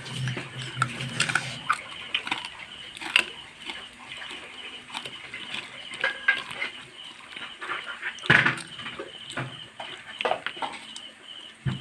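Hands picking sticky caramelised sweet potato slices out of a glass dish: scattered small clicks and taps, with one louder knock about eight seconds in. A faint high, rapidly pulsing tone runs underneath.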